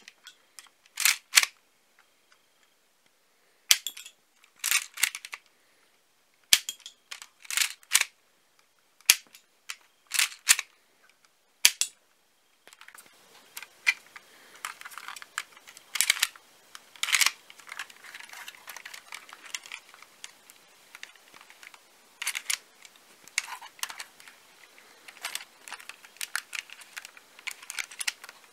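Plastic snaps and clacks of a LEGO rubber-band gun's brick mechanism being worked by hand. The first half has sharp single snaps a few seconds apart, most followed by a quick cluster of clacks; from about 13 seconds in, the clacks and rattles come more densely over a faint hiss.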